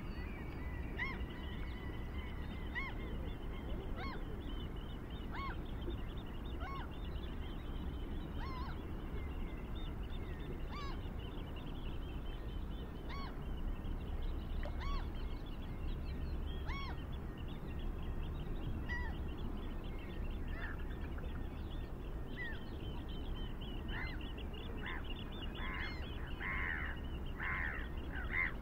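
A bird calling outdoors: a short pitched note repeated roughly once a second, with louder calls bunched together near the end, over a steady low background rumble.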